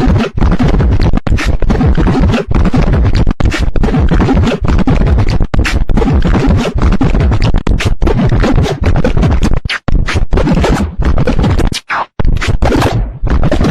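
Loud, heavily edited remix audio chopped into rapid stuttering fragments with abrupt cuts, sounding like record scratching and beatboxing; the cuts come faster and choppier near the end.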